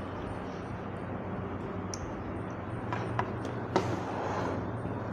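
A few light clicks and taps from small plastic toy pieces being handled, over a steady low background hum. The sharpest click comes near the end.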